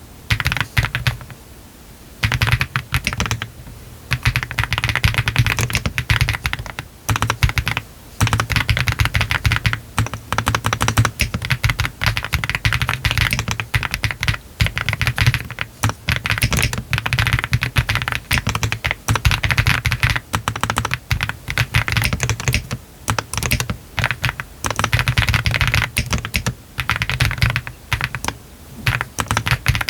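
Meletrix ZOOM TKL custom mechanical keyboard with Y3 switches, a PC flex-cut plate, all foams installed and PBT cherry-profile keycaps, being typed on fast in continuous bursts with a few brief pauses.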